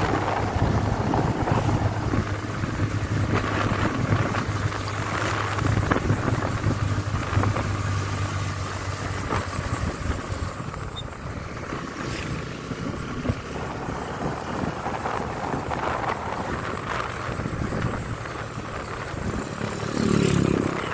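Motorcycle engine running steadily while riding, with rushing wind noise on the microphone; the engine hum weakens about nine seconds in and swells again briefly near the end.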